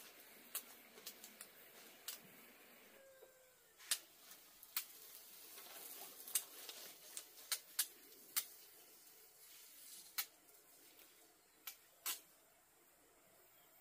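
Irregular sharp clicks and knocks, about fifteen spread unevenly, over a low background.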